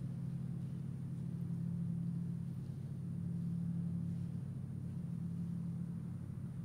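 Large gong on a stand held in a steady low drone, swelling slightly a couple of times, with no separate strikes.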